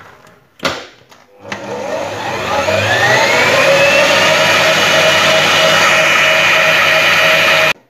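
Kitfort stand mixer lowered into place with a clunk, then its motor starting up and rising in pitch as it comes up to speed. It whisks egg whites and sugar steadily and stops abruptly near the end.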